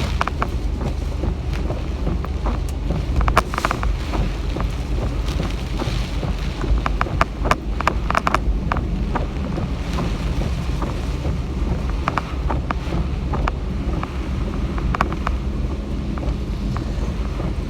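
Typhoon wind buffeting the microphone: a steady low rumble with scattered sharp taps and knocks throughout.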